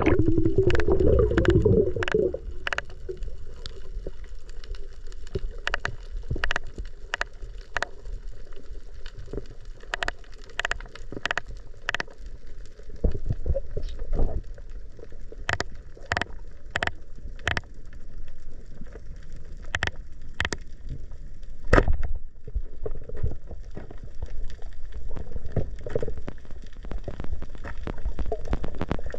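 Underwater sound through a diving camera's housing: a muffled rush of water and bubbles in the first two seconds as the diver goes under, then a quieter hiss with sharp clicks scattered about every half second to a second, and one louder knock about 22 seconds in.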